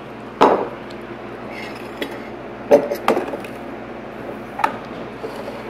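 Four sharp knocks and a few light clinks from a ceramic bowl and hands on a tabletop as the bowl is set down, over a steady low hum.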